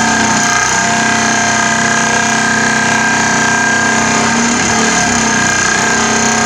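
Pile driver sinking a rolled-steel pile, a loud, continuous mechanical din with several steady tones and no separate hammer blows, typical of a vibratory hammer driving the pile down.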